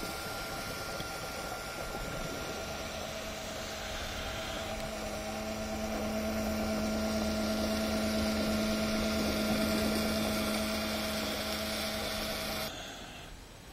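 Boat engine running steadily, a droning hum that grows louder midway and then cuts off abruptly near the end.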